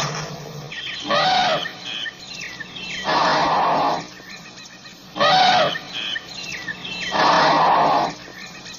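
African elephant calls, four loud bursts about two seconds apart, short pitched calls alternating with longer breathy ones, with birds chirping faintly between them.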